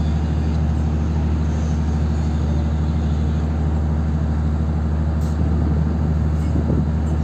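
Boat engine running steadily: a low, even drone with a steady hum.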